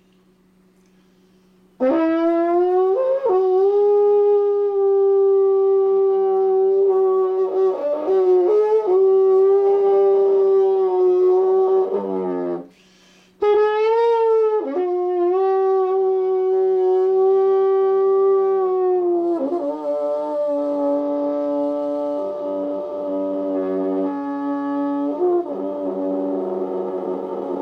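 Soprano trombone playing long held notes, with short slides between pitches. It comes in about two seconds in, breaks off briefly about halfway, then settles on a lower held note for the last third.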